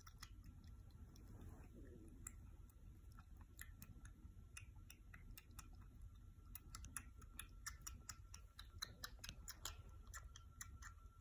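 Tabby kitten suckling milk from a nursing bottle's teat: faint, irregular clicks from its mouth, coming faster from about six seconds in.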